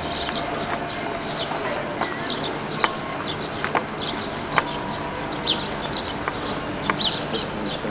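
Birds chirping outdoors: many short, high chirps in quick clusters throughout, with a few sharp clicks scattered among them.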